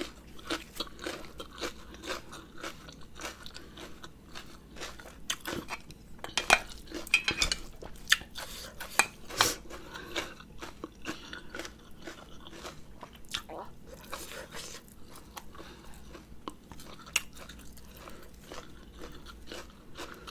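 Close-miked chewing of a spicy rice-noodle salad: a steady run of wet mouth clicks and crunches, louder and sharper for a few seconds around the middle.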